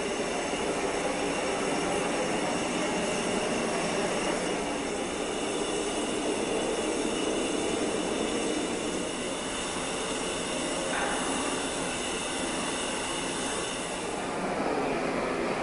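Gas torch running with a steady rushing hiss as it heats cast bronze for patination. The sound shifts slightly about eleven seconds in and loses some of its high hiss near the end.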